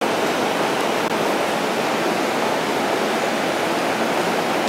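Steady rushing noise at a railway platform beside an E231-500 Yamanote Line train, with no distinct events.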